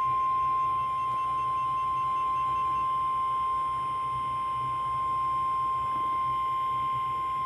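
NOAA Weather Radio warning alarm tone: one steady, loud, high single-pitch tone near 1050 Hz, the signal that a weather warning broadcast follows.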